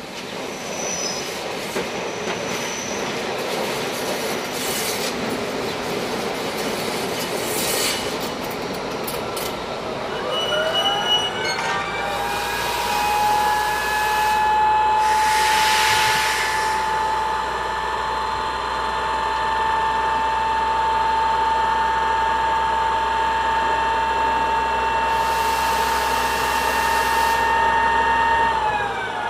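BVZ metre-gauge electric train rolling in and stopping, with wheel and rail clicks and brief brake squeal. About ten seconds in, a whine rises from the standing train and holds steady over a low hum, broken by a few short bursts of hiss. Near the end the whine starts to fall in pitch.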